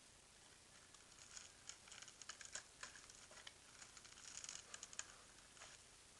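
Faint, irregular scratching and clicking in loose clusters, close to near silence.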